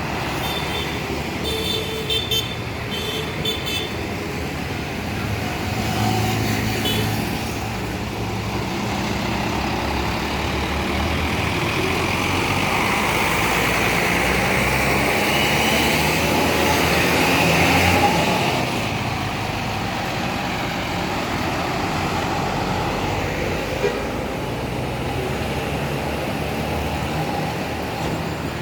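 Tour bus engine running as the bus pulls out and drives past, swelling to its loudest about eighteen seconds in and then easing off. A few short horn toots sound about two seconds in.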